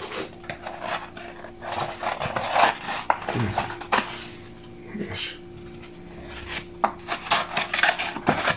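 Molded pulp packaging inserts being pulled off a laptop and handled: dry scraping, rubbing and knocking in irregular bursts, over a faint steady hum.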